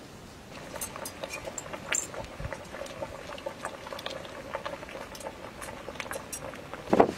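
Pot of pumpkin pieces boiling over an open wood fire, with steady bubbling and many small pops, starting about half a second in. A brief loud thump at the very end.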